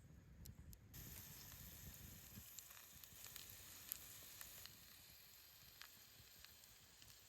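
Food sizzling in a pan over a campfire, a steady hiss that starts suddenly about a second in, with scattered crackling pops.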